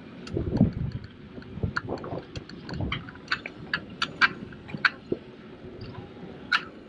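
Folding bike ridden along a residential street: irregular sharp clicks and rattles, about a dozen, with low rumbling swells of wind on the microphone.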